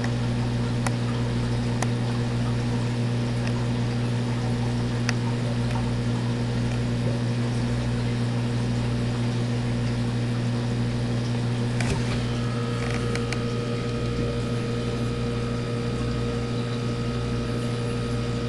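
Steady electric hum of an aquarium pump, with a low throb pulsing a little more than once a second. A single light click comes about two-thirds of the way through.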